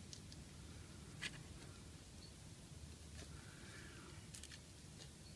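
A few faint clicks and taps of a small carburettor being handled and a part worked loose, over quiet room tone. The sharpest click comes about a second in.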